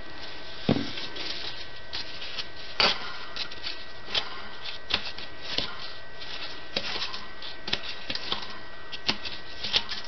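Gloved hands turning the housing of a freshly oiled K55 stack ceiling-fan motor: irregular clicks, taps and rubbing from the metal parts, with a sharper knock about a second in.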